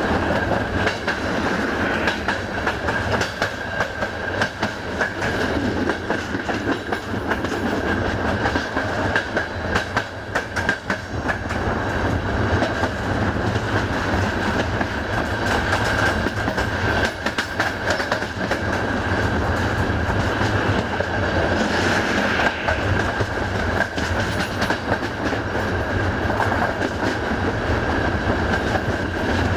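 Passenger train coaches running at speed, heard from an open window: a steady rush of running noise with wheels clicking over the rail joints and a steady high ringing tone. The hiss rises briefly about two-thirds of the way through.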